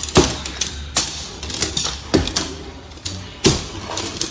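Fiberglass dome-tent pole sections clacking as they are fitted together into their metal ferrules: four sharp clicks spread over a few seconds, with handling noise between.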